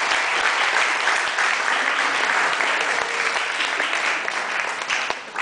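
Theatre audience applauding: dense, steady clapping that thins out near the end.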